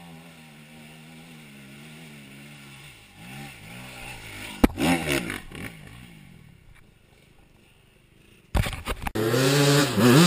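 Quad's single-cylinder four-stroke engine running at low revs and blipped up and down, with a sharp knock about halfway. Near the end, knocks and clatter start suddenly, followed by a loud engine revving hard.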